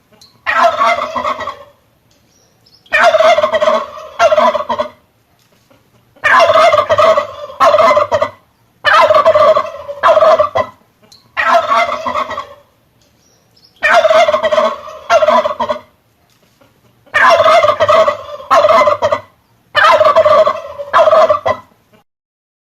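Male turkey (tom) gobbling over and over: about eight gobbles of one to two seconds each, with short pauses between them.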